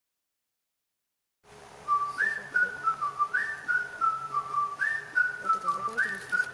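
Whistled melody opening a pop song's backing track: four short phrases, each jumping up and stepping back down, about one every second and a half. It starts after about a second and a half of silence.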